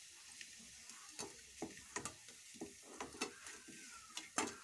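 Slices of spinach-and-wheat-flour roll sizzling faintly as they shallow-fry in a little oil in a kadhai, while a wooden spatula scrapes and knocks against the pan to turn the pieces and lift them out. About a dozen knocks come irregularly, and the loudest is near the end.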